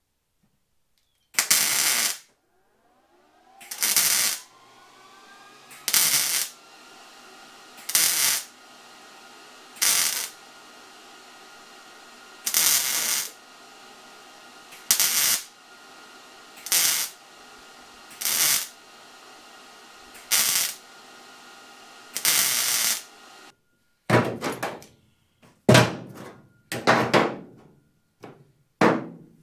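MIG welder laying a series of short tack welds on a steel tube brace in a truck bed: eleven half-second arcs about every two seconds, with a steady hum between them. Near the end, a run of irregular knocks and clatter.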